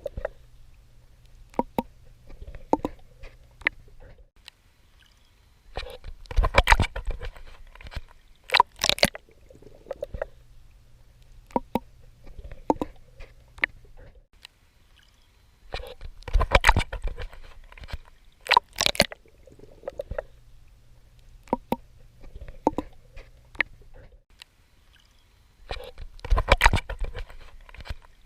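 Swimming in the sea: water splashing and sloshing in a cycle that repeats about every ten seconds, a longer splash followed by a sharp one about two seconds later, with small clicks and gurgles between.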